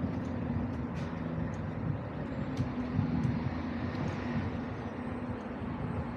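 Street traffic: a motor vehicle's engine hum, steady and low, with a hiss of road noise that swells briefly about two-thirds of the way through. A few light ticks sound over it.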